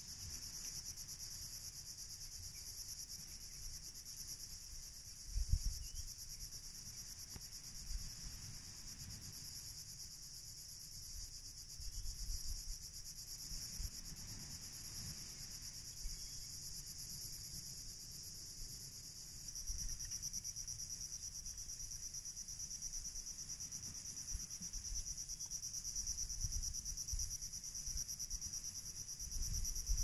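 Insects singing in a steady high-pitched chorus that grows stronger about two-thirds of the way through. A few short low rumbles break in, the loudest about five seconds in and near the end.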